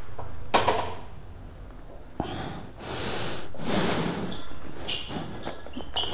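A door being opened: several knocks and clatters with stretches of scraping or sliding in between.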